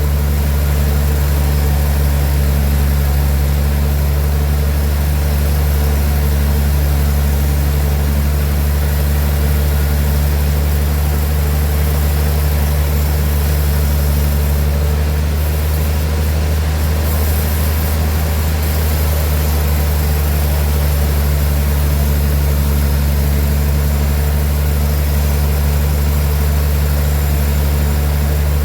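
Large sawmill machinery running steadily, an even, deep engine hum without a break.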